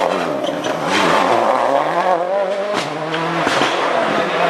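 Rally car engine revving hard, its pitch rising and falling repeatedly as the driver shifts gears and lifts off the throttle, with a few sharp cracks over the engine note.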